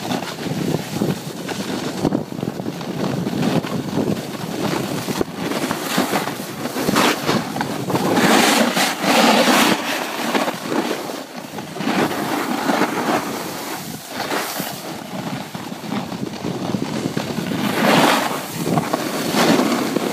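Snowboard sliding and carving over packed snow, a steady scraping hiss mixed with wind buffeting the phone's microphone, swelling louder about halfway through and again near the end.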